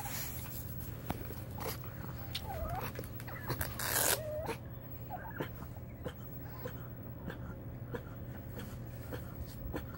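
Pug whining in short, thin whimpers that bend up and down in pitch, crying to be let out. A short, loud rush of noise comes about four seconds in.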